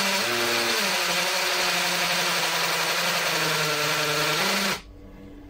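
Cordless drill boring into a concrete wall: a steady motor whine over a harsh grinding of the bit in the masonry, then it stops abruptly near the end.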